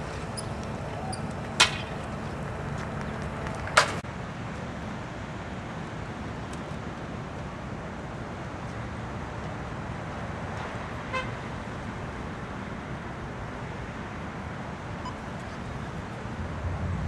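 Low, steady rumble of a workboat's engine, with two sharp knocks in the first four seconds, the second the loudest.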